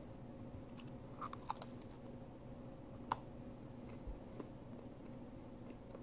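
Crunchy microwave-cooked bacon being chewed. There are a few sharp crunches between one and two seconds in and a louder one around three seconds, then softer chewing.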